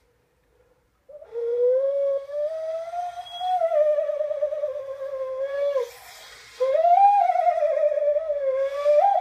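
Mexican clay Llorona whistle being blown: a wailing tone that wavers and slides up and down in pitch. It breaks off briefly about six seconds in, with a breathy rush, then starts again.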